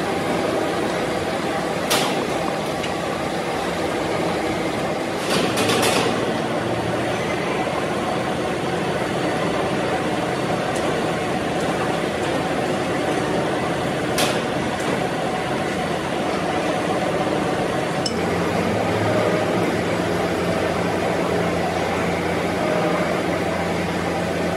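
Steady machine-shop noise with a few sharp metallic clinks, several seconds apart, from a spanner worked on the cutter head of a Pfauter gear hobbing machine. About two-thirds of the way through, a low steady motor hum sets in.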